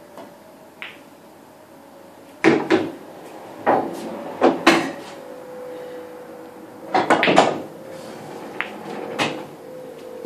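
Pool balls clacking on the table: cue-on-ball strikes and ball-on-ball collisions. They come as a run of sharp clacks about two and a half seconds in, another cluster around seven seconds, and a few quieter ones after.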